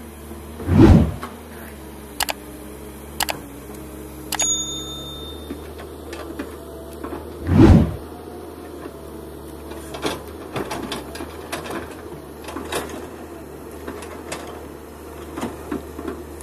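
Kobelco SK210LC hydraulic excavator's diesel engine running steadily while it digs. Two heavy thuds about seven seconds apart stand out, with scattered sharp clicks and clanks from the working machine.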